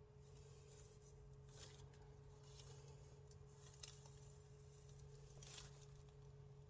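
Faint, soft scrapes of a kitchen knife cutting through a bagel, a handful of short strokes several seconds apart over a steady low hum.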